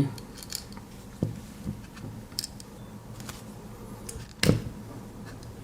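Scattered small clicks and taps of a Victorinox Compact Swiss Army knife being handled as its tools are opened, with a sharper click about four and a half seconds in.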